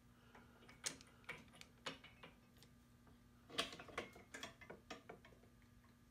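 Faint, irregular light metallic clicks and clinks from a Snap-on click-type torque wrench and its deadweight lever rig as the wrench is pulled against the hanging steel plates, busiest about three and a half to five seconds in. None of them is the wrench's telltale release click: it is set a little over the target torque and does not break.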